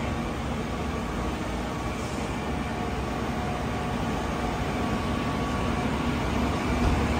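A tower ladder fire truck's diesel engine running steadily, a low hum with a few faint steady tones above it.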